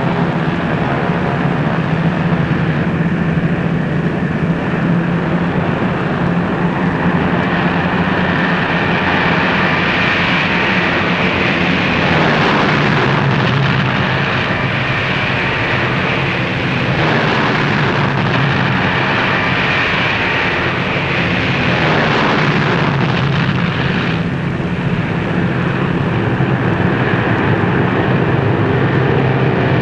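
Boeing B-17 Flying Fortress bombers' four radial engines running at takeoff power: a loud, steady drone that swells a few times as the planes go by.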